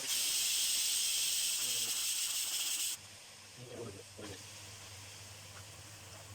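Beef sizzling loudly as it sautés in hot oil with garlic and ginger. The sizzle cuts off suddenly about three seconds in, leaving a quieter low hum with a few faint knocks.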